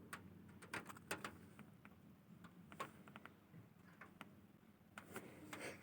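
Near silence broken by faint, irregular clicks and ticks, a dozen or so scattered through it.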